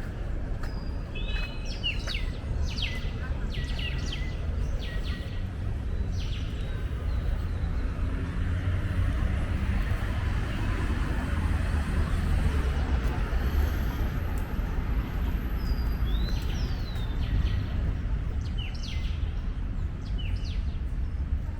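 City park ambience: a steady low rumble of surrounding traffic, with small birds chirping in quick clusters during the first few seconds and again about sixteen seconds in.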